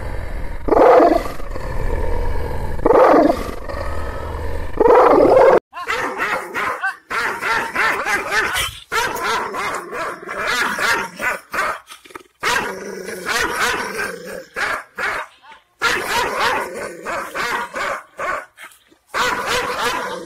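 Large fawn, black-masked Anatolian shepherd dog giving three deep, drawn-out barks about two seconds apart. About five and a half seconds in, a second dog takes over with a rapid string of angry barks and snarling growls.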